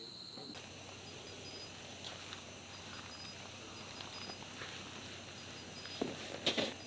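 Night insects: a steady high-pitched trill, with a second insect chirping in short regular pulses. Near the end, a short burst of knocks and rustling.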